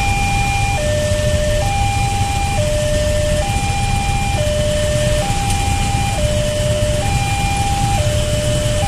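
Electronic railway level-crossing alarm sounding its two-tone warning, a higher and a lower tone alternating about once a second, steady and unbroken while the crossing is closed for trains. Under it, a steady low rumble of waiting road traffic.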